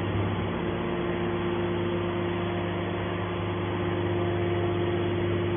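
Hydraulic can baler's motor and pump running steadily: a low hum with a steady whine over it.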